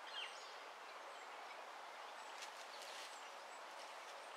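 Faint outdoor background with a steady hiss and a few soft bird chirps, one just after the start.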